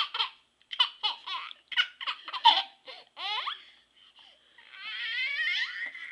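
Baby laughing in short, high-pitched bursts of giggles, then a long, wavering high squeal near the end.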